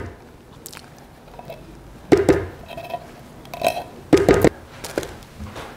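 Condensed cream of chicken soup being scraped out of its tin can with a rubber spatula: wet squelching plops as thick globs drop into the slow cooker, plus spatula scrapes against the can. A few of them come about two seconds in and again around four seconds.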